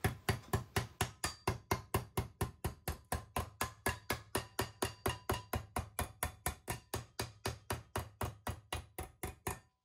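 Hammer blows on sheet stainless steel clamped over a socket in a bench vise, bending the metal over to form a radiused corner. The strikes come steadily, about four or five a second, and stop abruptly just before the end.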